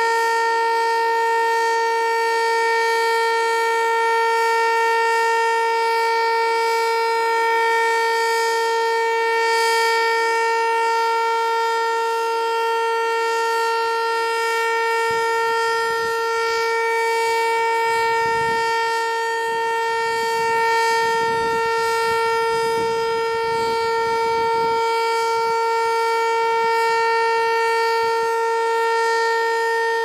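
Federal Signal Eclipse 8 electronic storm siren sounding its steady Alert tone, one unbroken note that holds the same pitch throughout. A low rumble sits under it for several seconds midway.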